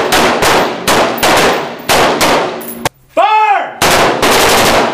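Rapid gunfire from several M4 carbines (5.56 mm) firing at once on a qualification line, shots overlapping several times a second and echoing under the range's roof, with a brief lull about three seconds in.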